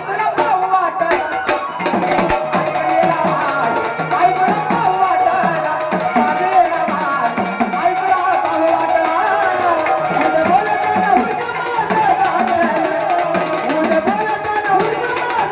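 Gondhal folk music played without singing: sambal drums keeping a steady driving rhythm under a wavering, continuous melody line.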